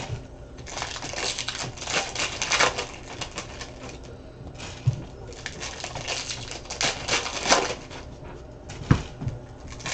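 Trading cards and their plastic pack wrappers being handled: irregular crinkling, rustling and light clicking as packs are torn open and cards are flicked through, with a couple of soft knocks on the table.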